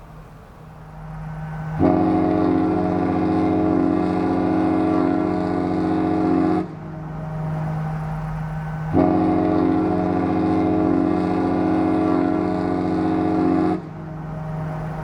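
A large cruise ship's horn, the Disney Treasure's, sounds two long blasts of about five seconds each. Each blast is a steady chord that starts and stops sharply, and a lower steady tone carries on between the blasts.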